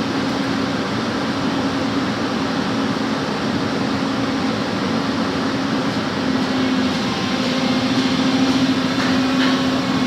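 Backhoe engine running steadily with a constant hum, getting a little louder in the last few seconds.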